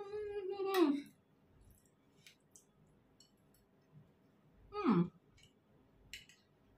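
A woman's appreciative hummed "mmm" while tasting food, held on one pitch for about the first second. About five seconds in comes a short sigh-like "mmm" that falls in pitch. A few faint clicks of a metal spoon on a plate come in between.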